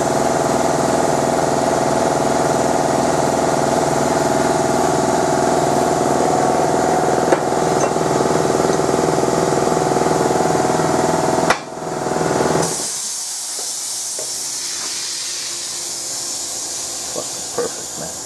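Shop machinery at a CNC plasma cutting table runs with a loud, steady drone and a fast rhythmic pulse, then stops abruptly about two-thirds of the way through. A quieter steady air hiss follows, with a few light metallic clicks near the end.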